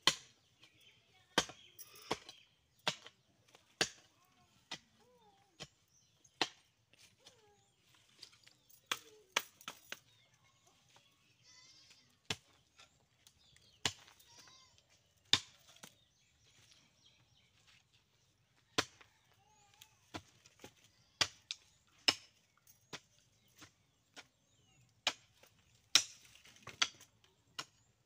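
Hand hoe chopping into soil to dig a planting hole: an irregular run of sharp thuds, about one to two a second, with short pauses between runs.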